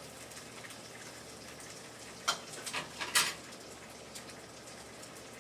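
Eggs frying in a pan with a faint, steady sizzle, broken by a quick run of four sharp clicks about two to three seconds in.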